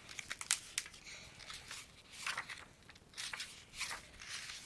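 A hardcover book being handled and opened, its cover and pages rustling, with several sharp light taps and clicks.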